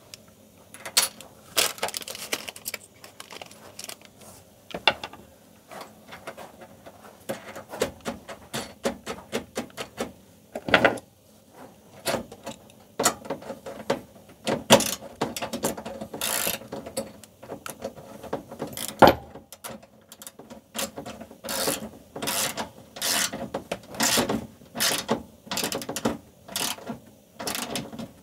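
Irregular clicks, knocks and scraping of hand tools and metal fittings as the outdoor air-conditioning unit's feet are unscrewed and swapped for spring anti-vibration mounts.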